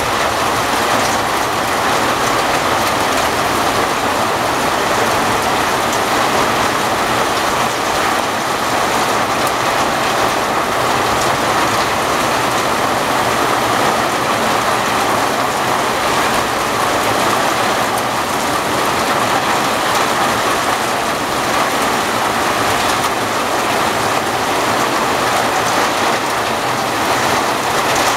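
Heavy rain pouring down and splashing onto wet stone paving and puddles, a steady, unbroken hiss.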